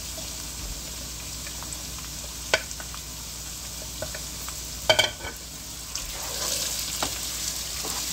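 Onions and potatoes sizzling in oil in a non-stick wok as ginger-garlic paste is added. There are a few sharp knocks against the pan, the loudest about five seconds in with a short ring. The sizzle grows louder from about six seconds in as the mix is stirred with a spatula.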